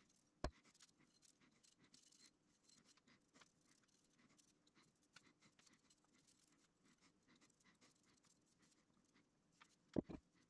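Near silence with faint scratching of a small paintbrush working paint onto a welded iron shelf bracket; a click about half a second in and two sharper knocks near the end.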